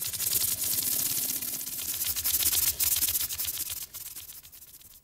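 Fast, even mechanical clatter over a steady hiss, fading away over the last second or so.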